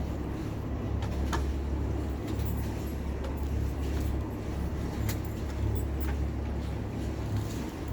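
A sailing catamaran's engine running steadily, a low rumble, with a few short clicks over it.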